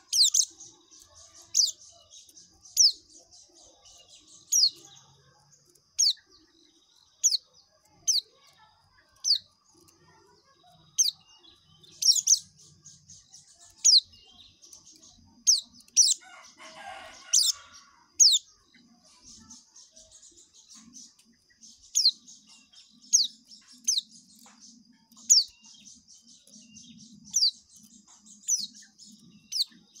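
Caged white-eye (pleci) singing its continuous high twittering song, cut through by sharp, downward-sliding notes about once every second or so. A short rustle comes about halfway through.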